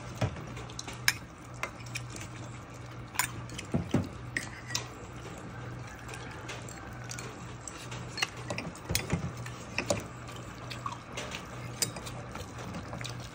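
A metal soup ladle scooping broth from a steel hotpot and pouring it into a porcelain bowl, with liquid splashing. Scattered sharp clinks of the ladle against the pot and the bowl run throughout, over a steady low hum.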